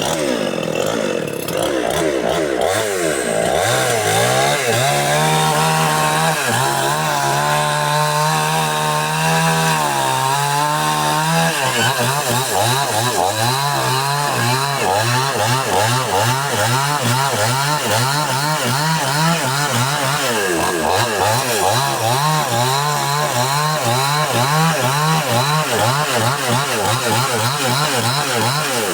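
Two-stroke chainsaw running hard, cutting wood. Its engine note holds fairly steady for several seconds, then rises and falls over and over as the chain works through the cut.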